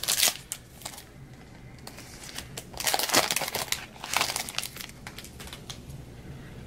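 Plastic wrapper of a basketball trading-card pack crinkling as it is torn open and handled, in short bursts at the start, about three seconds in and again about four seconds in.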